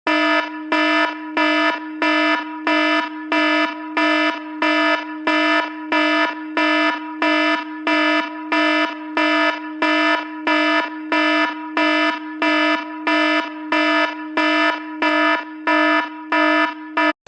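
Emergency alert alarm warning of an earthquake: a pulsing pitched tone, about two pulses a second, that cuts off abruptly near the end.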